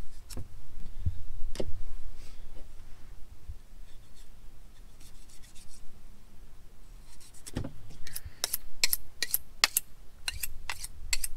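Hands and tools working a freshly plucked chicken carcass during gutting: soft rubbing and a few scattered clicks, then from about two-thirds of the way in a quick run of sharp, wet clicks and crackles.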